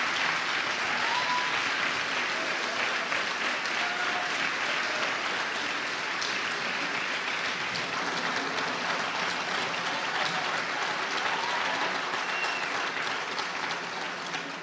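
Audience applauding: a long, steady round of clapping that slowly dies down near the end.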